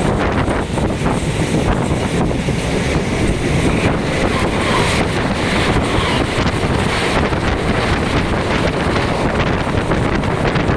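Mumbai local electric train running, a steady loud rumble and rush with wind buffeting the microphone and a few brief knocks.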